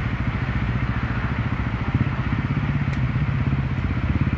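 Enduro motorcycle engine running steadily at low revs, with a rapid even pulse. A single brief click is heard about three seconds in.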